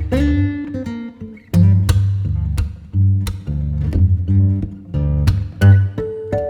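Background music: acoustic guitar strumming chords over a bass line, with a steady beat.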